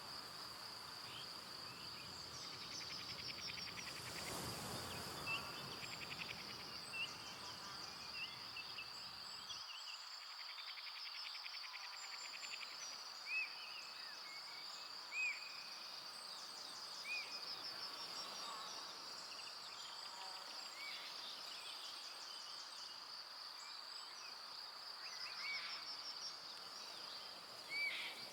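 Forest evening ambience: a steady, high-pitched insect trill runs throughout, with short bird chirps scattered over it, a few standing out louder near the middle. A brief gust of noise swells about four seconds in.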